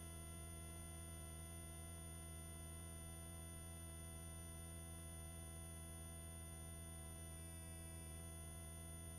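Faint, steady hum made of several fixed tones on the helicopter's headset intercom audio, with no voice on the channel.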